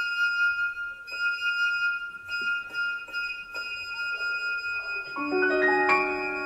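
Instrumental music: one high note held with a slight wobble over a few soft taps. About five seconds in, a run of lower notes enters one after another and the notes ring on together.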